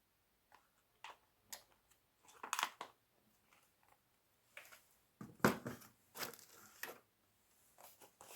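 Small packets and containers of sewing notions being handled: scattered crinkling and light clicks, a busier patch about five seconds in.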